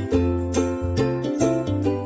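Background music: an upbeat tune with bell-like jingles and a plucked bass line, its notes changing about twice a second.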